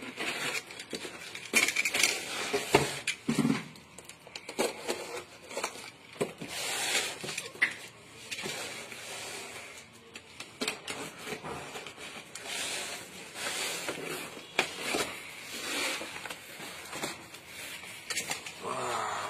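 Cardboard parcel being torn open and handled: rustling and scraping of cardboard and plastic wrap, with scattered sharp knocks and clatter.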